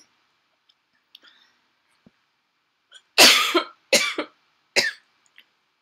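A woman coughing: a short fit of about four coughs starting about three seconds in, the first the longest and loudest.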